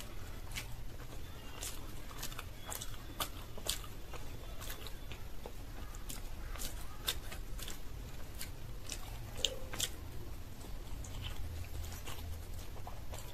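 Close-miked eating: chewing and biting with many sharp, irregular mouth clicks, over a low steady hum.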